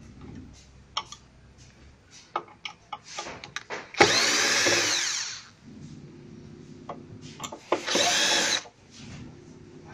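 Cordless drill-driver running in two bursts, the first about a second and a half long and the second about a second, backing screws out of a self-balancing scooter's control plate. Small clicks and knocks of handling come before the first run.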